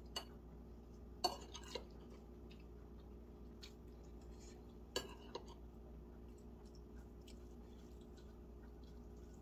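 Eating sounds: utensils clinking against a dish in a few sharp clicks, a cluster about a second in and another about five seconds in, with soft chewing and small mouth and food sounds between, over a low steady hum.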